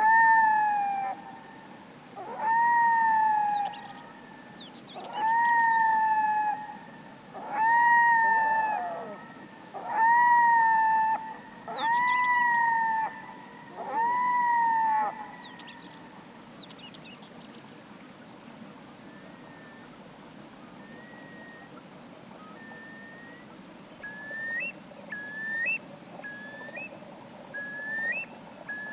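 Red-throated diver (red-throated loon) calling: a series of seven loud long calls, each about a second long, slightly rising then falling in pitch, repeated about every two seconds. After a pause, a run of shorter, quieter rising notes comes near the end, about one a second.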